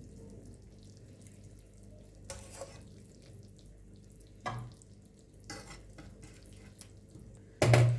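Chicken wings cooking in a pan: a faint, steady simmer with a few short scrapes or sizzles as they are moved about. A louder clatter comes near the end.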